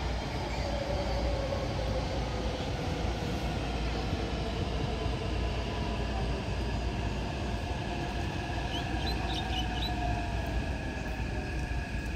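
Taipei Metro train running along the track and moving away: a steady rumble of wheels on rail with faint squeal and a faint whine that slides slowly in pitch.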